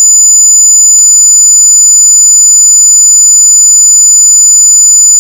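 Very loud, high-pitched steady electronic tone, held without a break, with a brief click about a second in.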